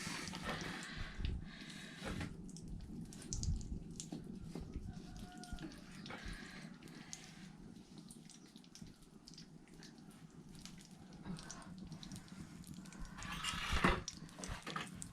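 Water sloshing and dripping, with scattered light clicks, and a louder splashing rush near the end.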